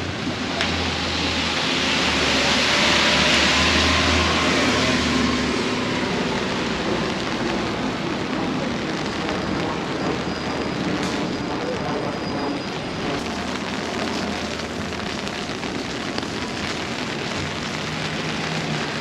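Rain falling on a wet city street, with the hiss of a passing vehicle's engine and tyres on wet pavement swelling and fading over the first few seconds.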